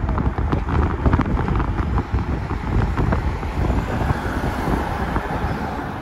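Road noise of a moving car with wind buffeting the microphone, a steady rumble with crackling gusts. No siren.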